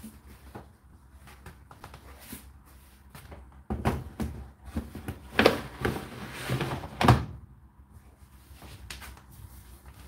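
Plastic condensate water container of an Indesit IDC8T3 condenser tumble dryer being slid back into its drawer slot: a run of plastic knocks and scraping, ending in a loud clunk as it is pushed home.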